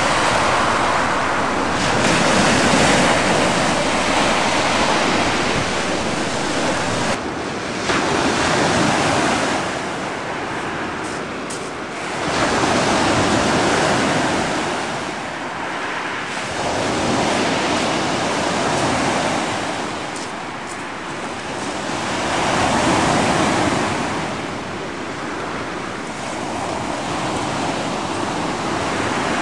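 Sea waves washing and surging, swelling and fading every few seconds, with wind buffeting the microphone.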